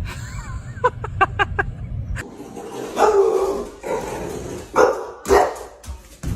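A dog barking: a quick run of about five short, high yips about a second in, then a few louder barks in the second half.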